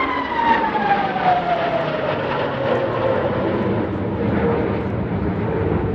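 Aircraft flying past, its engine tone falling steadily in pitch over the first couple of seconds as it goes by, then settling into a steadier drone.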